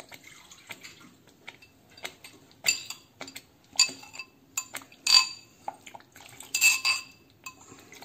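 Metal spoon clinking and scraping against a glass bowl as water is poured from it into a pan of spinach gravy; about five louder ringing clinks, with lighter taps between them.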